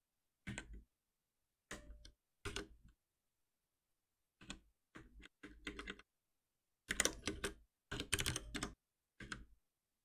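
Typing on a computer keyboard in about eight short bursts of keystrokes, with pauses between them.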